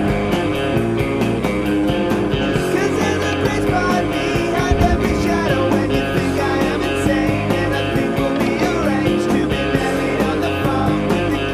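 Rock intro theme music with guitar over a steady beat.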